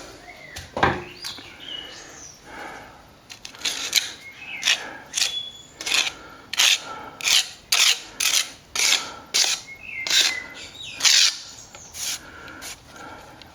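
Brush scrubbing over damp plaster to smooth out the stucco texture: quick swishing strokes, sparse at first, then about two a second from about three seconds in. Faint high chirps sound between the strokes.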